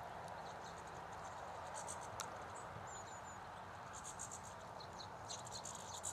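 Small birds giving short, very high chirps in quick clusters, with a few little falling notes, over a steady background hiss. A single sharp click comes about two seconds in.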